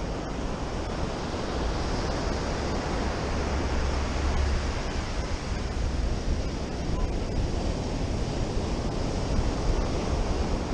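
Ocean surf breaking and washing up a sandy beach, a steady rushing noise, with a low rumble of wind on the microphone.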